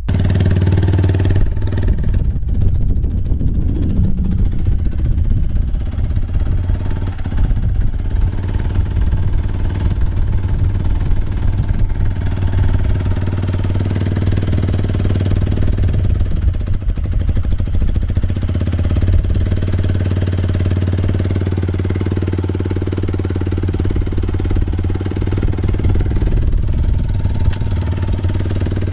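2016 Yamaha MT125's 125 cc single-cylinder four-stroke engine running steadily at idle.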